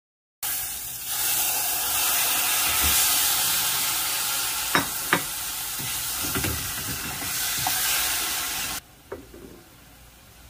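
Tomato, onion and meat sizzling as they sauté in a nonstick saucepan, stirred with a spatula that knocks sharply against the pan a couple of times midway. The sizzle cuts off abruptly near the end, leaving only a faint hiss and one last click.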